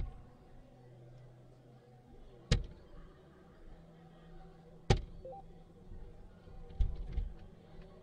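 Soft-tip darts striking an electronic dartboard: three sharp hits about two and a half seconds apart, the third followed by a short two-note electronic beep from the board. A few duller knocks come near the end.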